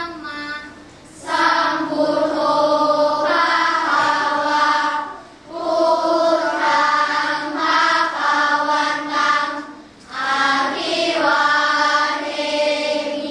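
A large group of schoolchildren chanting a Buddhist chant together in unison, on long held notes. The chant comes in long phrases with short breaks for breath about a second, five and a half seconds and ten seconds in.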